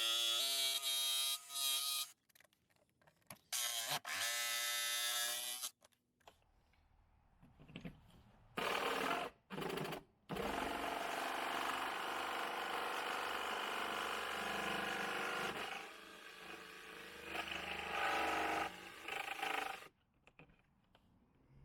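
Jigsaw cutting a square hole in an RV compartment door: the saw starts and stops several times in short bursts, then runs in one longer steady cut of about five seconds, followed by a few quieter, broken bursts.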